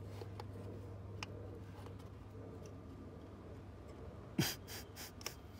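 Faint, scattered clicks and light taps of hand work on engine parts and fittings, over a steady low hum. Near the end comes a sudden loud cluster of several short, noisy bursts.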